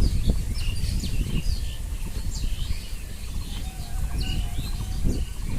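Several small birds chirping and calling in quick, overlapping short notes, over a steady low rumble.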